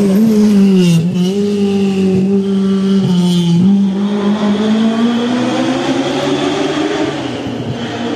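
Rally car engine running hard. Its note sinks and jumps back up twice, about a second in and again about three and a half seconds in, then rises steadily as it accelerates.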